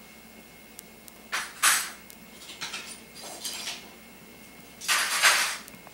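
Dishes and cutlery being handled off-picture: a few short clattering, rustling bursts, the loudest about one and a half seconds in and again near the end.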